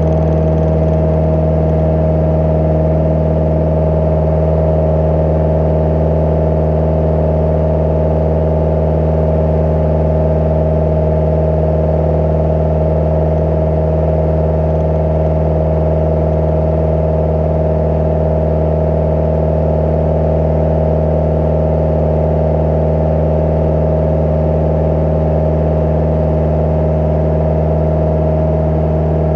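Cozy Mk IV's rear-mounted pusher engine and propeller droning steadily in flight, heard inside the cockpit.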